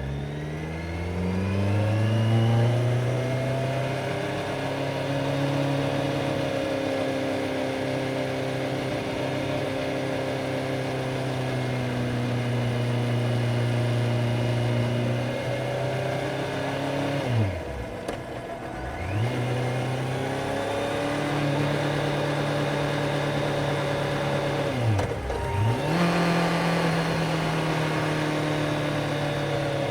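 Kawasaki Z900's inline-four engine heard from onboard, pulling hard through the revs near the start and then holding a steady cruise. Twice the revs drop sharply and climb back within a second or two.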